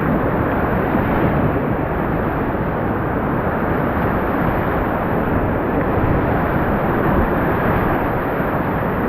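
Loud, steady rush of whitewater pouring through a river rapid.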